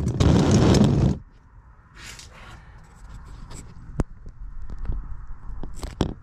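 Camera handling noise as the camera is picked up and repositioned: a loud rubbing scrape for about the first second, then scattered sharp clicks and taps, the sharpest about four seconds in and a cluster near the end.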